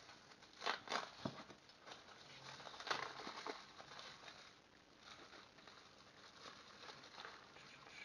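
Small clear plastic bags rustling as they are handled and opened, with light clicks of small metal pen-kit parts: a few sharp clicks in the first second and a half, a louder rustle about three seconds in, then fainter rustling.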